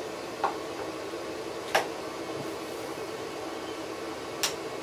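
Three sharp clicks from a screwdriver working the small pilot-jet screw on a Briggs & Stratton lawn mower carburetor, about half a second, one and three-quarter seconds and four and a half seconds in, over a steady background hum.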